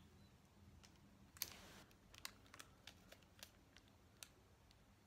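Faint handling sounds of a small strip of clear sticky tape being handled and pressed onto skin: a brief soft rustle about a second and a half in, then a run of light, irregular clicks.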